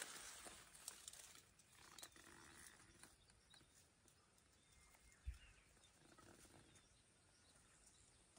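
Near silence: faint outdoor air with light rustling and small ticks, and a single low bump about five seconds in.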